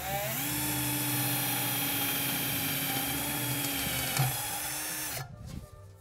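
Cordless drill spinning up and drilling a small pilot hole through the sheet-metal bottom of a motorcycle gas tank, a steady whine that winds down and stops about five seconds in. A brief tick sounds a little past four seconds in.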